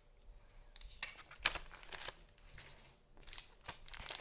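Faint crinkling and rustling of foil booster-pack wrappers and trading cards being handled, with scattered light ticks and snaps.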